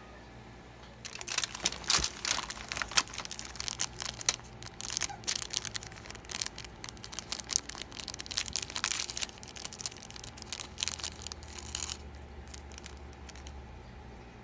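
Thin clear plastic wrapper of an individually wrapped cracker crinkling and tearing as it is pulled open by hand: a dense run of crackles that starts about a second in and stops about twelve seconds in.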